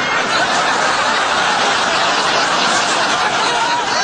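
Audience laughing loudly and steadily.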